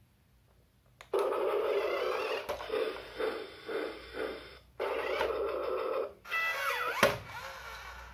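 Battery-powered toy train's built-in sound effects playing through its small speaker, starting about a second in with a pulsing rhythm of about two beats a second, then a short gliding high-pitched part, and a sharp click about seven seconds in.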